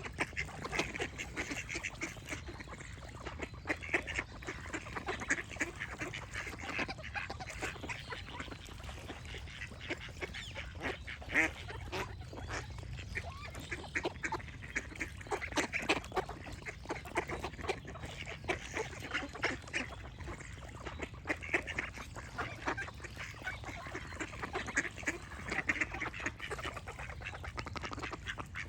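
A flock of ducks quacking, many short overlapping calls one after another, over a steady low background noise.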